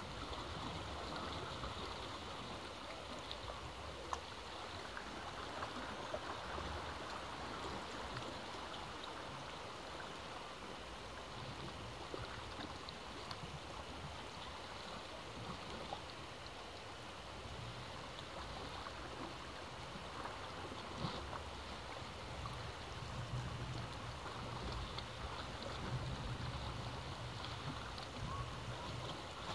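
Sea waves washing against rocks below a cliff: a steady rush of water, with a low rumble that grows stronger in the second half.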